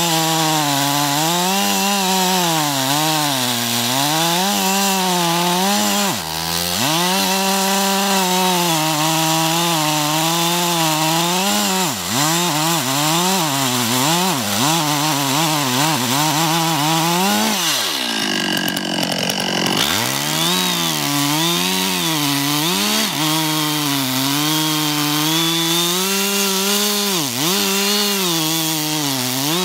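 Two-stroke chainsaw cutting into the base of a large tree trunk, the engine held at high revs under load, its pitch wavering with the cut. It dips briefly a couple of times and drops low for about two seconds around two-thirds through, then revs back up.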